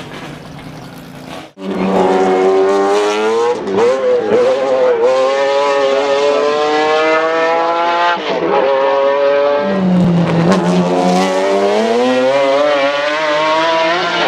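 The McLaren F1 GTR's naturally aspirated BMW V12 accelerating hard. After a quieter first second and a half, the engine note climbs steadily in pitch and drops sharply twice at gear changes, climbing again after each.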